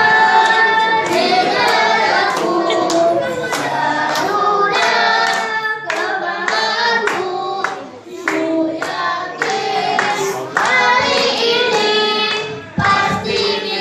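A group of fathers and children sings a rhythmic camp group cheer (yel-yel) together, with hand claps cutting through the singing.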